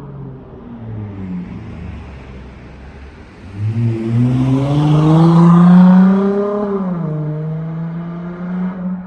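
Dodge Charger SXT V6 exhaust through Flowmaster Super 10 mufflers under acceleration: a low rumble, then about three and a half seconds in it gets loud and rises in pitch, falling back a little after about seven seconds to a steady drone.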